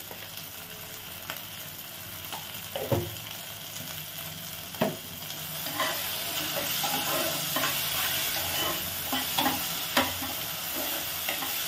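Spice paste with onion, tomato and peas frying and sizzling in oil in a pot while a metal spatula stirs and scrapes through it, the masala being sautéed. The spatula knocks against the pot a few times, and the sizzle grows louder about six seconds in.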